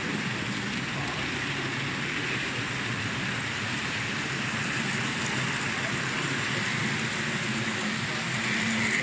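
Model train wagons and coaches rolling past on the layout track: a steady, even rattling hiss of many small wheels on the rails, with a faint low hum underneath.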